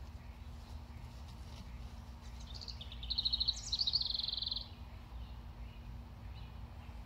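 A small songbird sings one short, rapid trilled phrase lasting about two seconds, a little under halfway through, over a steady low background rumble.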